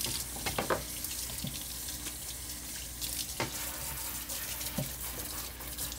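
Kitchen faucet running steadily into a stainless steel sink, with a few light knocks as a plastic sponge-and-soap holder is scrubbed with a dish brush under the stream.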